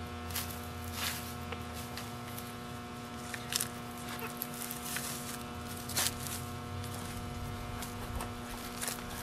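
A steady electrical hum under a faint low rumble, with a few sharp clicks, the loudest about three and a half and six seconds in.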